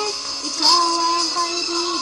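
A pop song: a singing voice draws out a sliding melody line over backing music, with a short bright cymbal-like hit under a second in.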